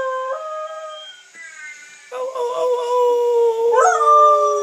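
A collie howling in long, drawn-out notes: one howl sliding down and fading in the first second, then after a short pause a long held howl that lifts in pitch near the end.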